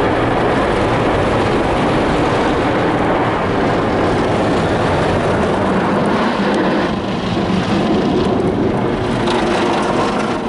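Mark VII SoftWash XT rollover car wash in its soft-wash brush pass: spinning cloth brushes scrubbing across the car's body and windows amid water spray, a steady dense rush heard from inside the car.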